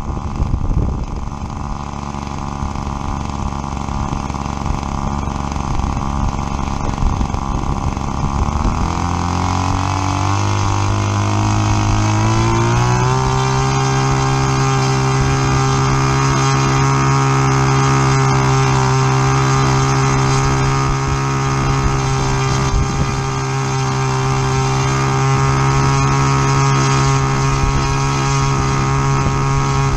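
New model airplane engine running in on a test stand: it runs steadily, then speeds up over about five seconds from about eight seconds in and holds at the higher speed.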